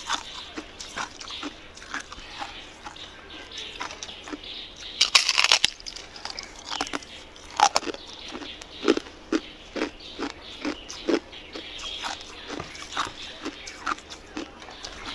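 A bar of crystalline freezer ice bitten and chewed, heard close up: a loud crunching bite about five seconds in, then a run of short crisp crunches as the ice is chewed.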